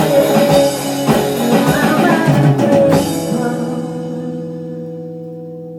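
Closing bars of a pop-rock song: a band with drum kit and guitar plays, then about three seconds in a final chord rings out and slowly fades.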